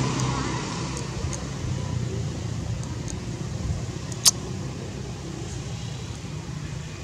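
Low, steady rumble of a distant motor engine, slowly fading, with one sharp click about four seconds in.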